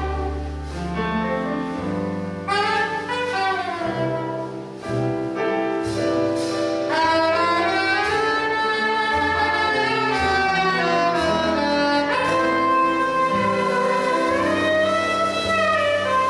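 Small jazz combo playing: a saxophone carries a gliding melody over double bass notes and piano accompaniment.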